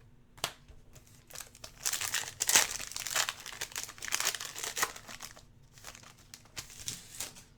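Crinkling and tearing of a trading-card pack's plastic wrapper as it is opened and handled, in short crackly bursts that are busiest in the middle.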